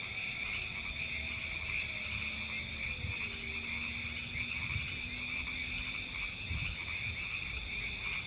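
A dense, steady chorus of frogs trilling, with a low rumble underneath and a few faint, slowly falling tones in the first half.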